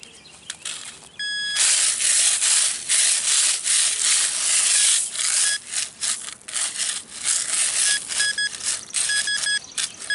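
Metal detecting target recovery: a pinpointer gives short, high-pitched electronic beeps over the target, in quick runs near the end. Loud scratchy scraping and rustling of a digging tool working through soil fills the middle.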